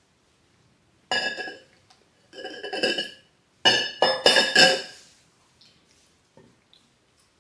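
Ringing clinks and rattles from an insulated drinking tumbler being tipped up and handled for a drink, in three bursts about a second apart; the last is the loudest and longest.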